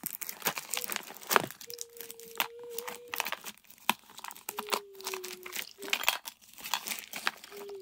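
Plastic wrappers and paper crinkling, with small plastic pieces clicking, as trash items are handled and dropped into a plastic toy garbage truck's hopper. A faint held tone sounds twice in the middle.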